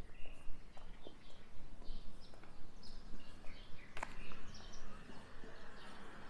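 Small birds chirping in short, scattered calls over a steady low background rumble, with one sharp click about four seconds in.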